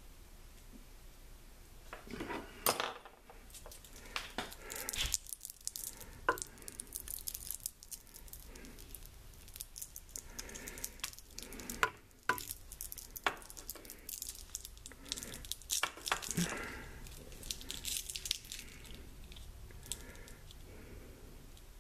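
Stiff outer insulation of a multi-wire cable being cut and scored open by hand, with scraping, crackling and sharp handling clicks at irregular intervals.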